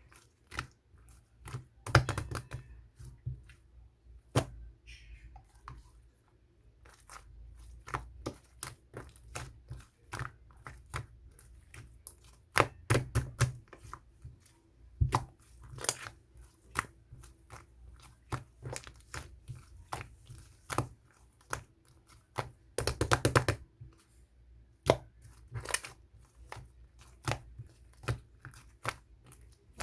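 Slime being pressed and worked by hand, giving irregular sharp clicks and crackling pops, with a dense run of crackling about three-quarters of the way through.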